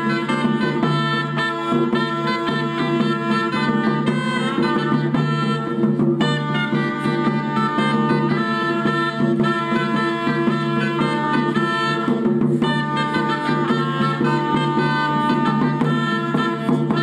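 Medieval music on wooden shawms: several loud reed pipes play a tune together over a steady low drone.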